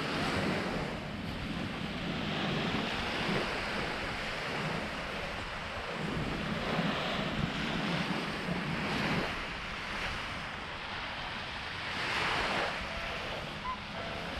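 Small waves washing onto a sandy beach, the surf swelling and fading every few seconds, with steady wind buffeting the microphone.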